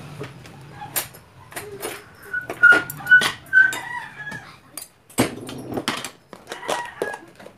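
Metal spoon and fork clinking and scraping against a ceramic bowl while mixing rice, with a run of sharp clinks about two and a half to three and a half seconds in that ring briefly at the same pitch, over a low steady hum.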